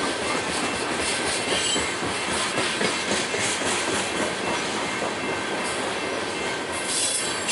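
Coal train's hopper cars rolling past: a steady rumble and clatter of steel wheels on the rails, with a faint thin wheel squeal that turns into a brighter, louder screech near the end.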